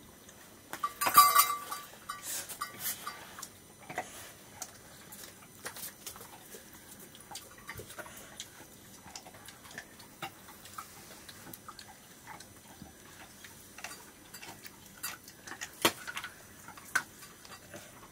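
Small clicks and taps of fingers scooping rice against steel plates during a meal eaten by hand, with a louder clatter about a second in and a sharp knock near the end.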